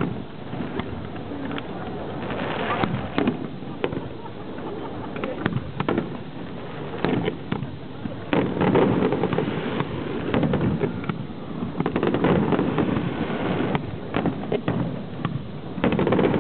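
Fireworks display: a run of sharp bangs and crackles at irregular intervals, with spectators' voices between them.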